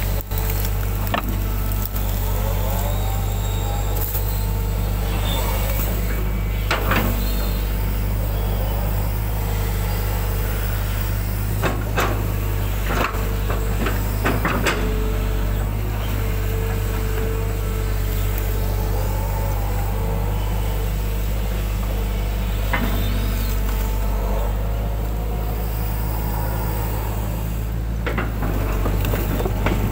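Hydraulic excavator heard from its cab: the diesel engine runs steadily under load while the hydraulics whine, rising and falling in pitch as the boom and bucket move, with a few sharp knocks and clanks from the bucket and linkage as it scrapes out a muddy ditch.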